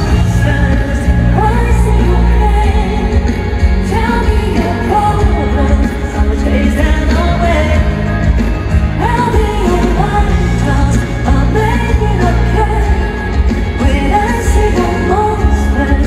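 Live stadium concert music: a man singing over loud pop-rock band backing with heavy bass.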